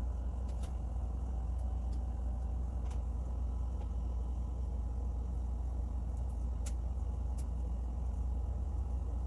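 Steady low hum of background noise, with a few faint clicks of plastic toy ring parts being handled and fitted.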